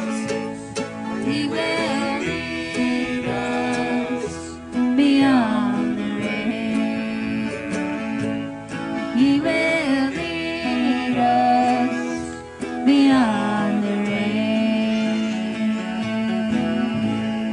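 Live country-style song: singing in long held notes that slide between pitches, over acoustic guitar accompaniment.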